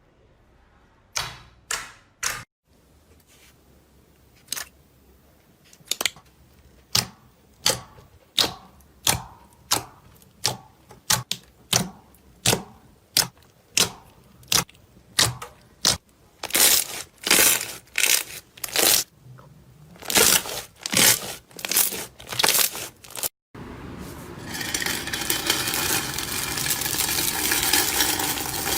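Slime being pressed and poked, giving sharp wet pops and clicks about one or two a second, coming louder and closer together past the middle. After a sudden cut near the end, a dense, continuous crackling of slime being squeezed follows.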